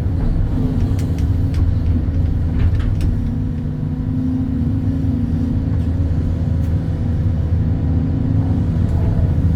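Hydraulic excavator's diesel engine running steadily under digging load, its pitch rising and falling slightly, with a few light knocks.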